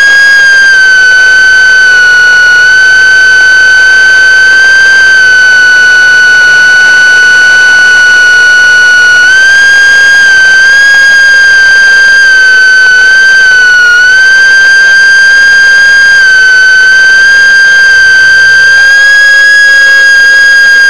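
Small drone's propellers whining with one loud, steady high tone, its pitch dipping and rising slightly a few times as the throttle changes.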